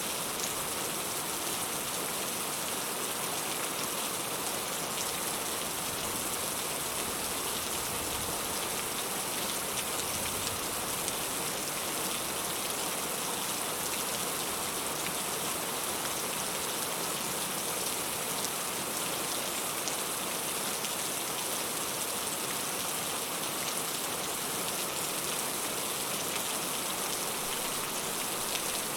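Steady rain falling, a dense, even patter of drops that holds at one level throughout.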